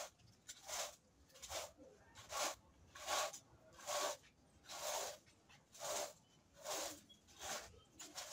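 Metal fan rake scraping over dirt ground and loose debris in steady strokes, about one a second.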